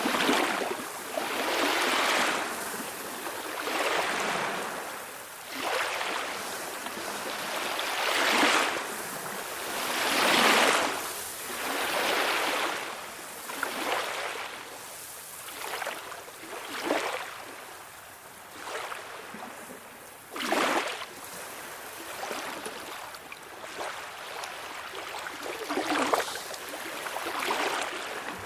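Small calm-sea waves washing in, each wash swelling and fading about every two seconds. In the second half they are quieter, with a few sharper splashes.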